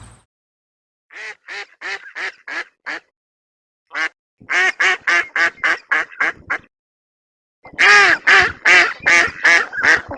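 Duck quacking in three runs of rapid quacks, about three to four a second, the last run loudest.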